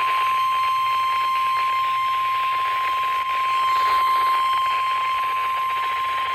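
NOAA Weather Radio 1050 Hz warning alarm tone: one steady, unbroken high tone, received over a weather radio with a hiss of static beneath it, sounded as part of a required weekly test.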